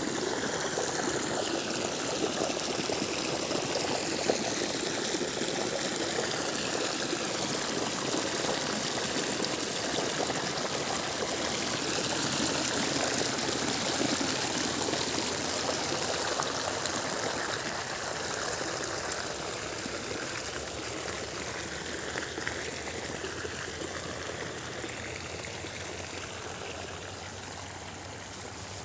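Water running steadily along a small earthen channel and spilling past sandbags laid across it, growing fainter over roughly the last ten seconds.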